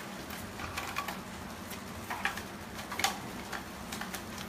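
Puppies' paws and claws tapping on a training platform: a handful of light clicks at irregular intervals.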